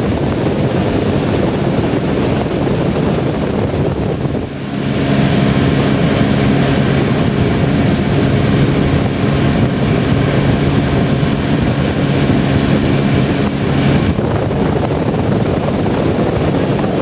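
Tow boat's engine running steadily at speed, with wind buffeting the microphone and water rushing from the wake. The engine tone dips briefly about four and a half seconds in, and about fourteen seconds in it drops away, leaving wind and water noise.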